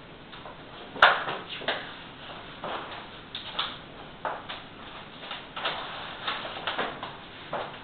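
Irregular short knocks and rustles, about two a second with the sharpest about a second in, as a whiteboard sheet is pressed and worked against the wall by hand.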